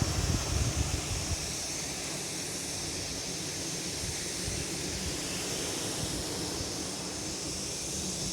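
Steady wash of sea waves on the shore, with wind buffeting the microphone in the first second or so.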